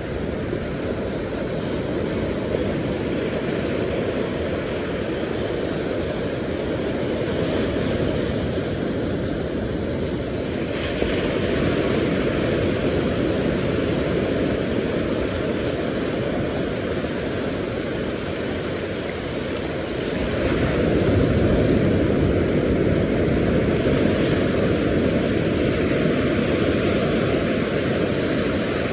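Steady low rumble of surf and wind on an open beach, swelling about a third of the way in and again past the middle.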